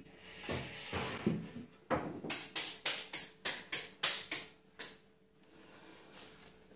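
Particle-board cabinet panels shuffled and knocked as they are set against a wall, then about ten quick hand claps, roughly four a second, as hands are dusted off.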